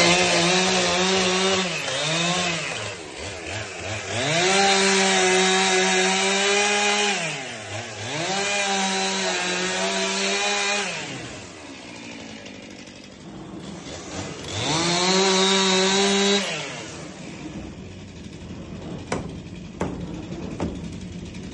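Stihl chainsaw revving hard in four long bursts, cutting into wood, and dropping back to a lower idle between them; a couple of knocks near the end.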